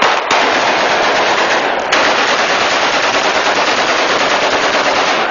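Celebratory rifle fire into the air: a few separate shots at the start, then shots from many guns so close together that they merge into one continuous crackle.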